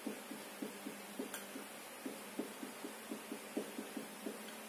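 Marker pen writing on a whiteboard: a run of short, irregular soft taps as each symbol is stroked onto the board, over a steady faint room hiss, with one sharper click about a second in.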